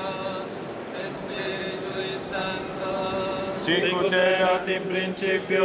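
Men's voices chanting a Latin prayer on sustained, recited tones, leading into the closing doxology. The chant grows louder a little past halfway.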